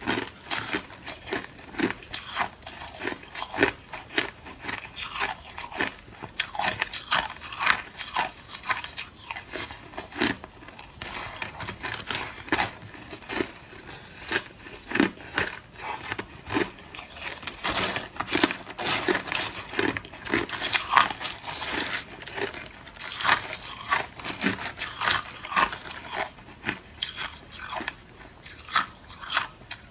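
Close-up crunching of hard crushed ice being bitten and chewed in the mouth, a rapid irregular series of sharp crunches several a second.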